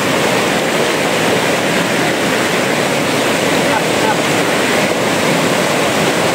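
Rushing water, such as a mountain river or stream, making a steady, even rush of noise.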